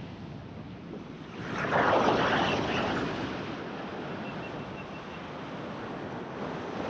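Sea swell washing against a rock ledge. One wave surges in about a second and a half in, peaks, and drains off by about three seconds, then the wash settles to a steady lower level.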